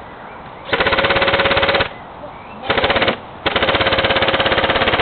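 Airsoft electric G36C rifle firing on full auto: a rapid, even mechanical rattle with the gearbox motor's whine under it. A burst of about a second, a very short burst, then a long burst that keeps going.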